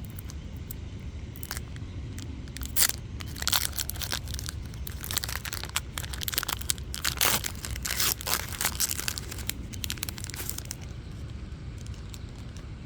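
Foil Pokémon booster pack wrapper being torn open and crinkled: a run of sharp crackles that stops about eleven seconds in, over a steady low rumble.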